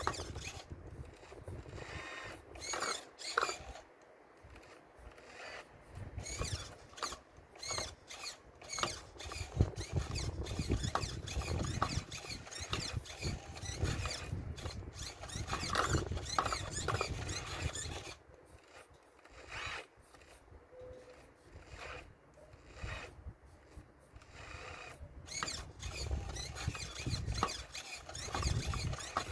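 Model RC Caterpillar excavator working on a stone wall: irregular clicks, knocks, scrapes and short squeaks from stones being shifted and the machine's moving parts, easing off into quieter stretches twice.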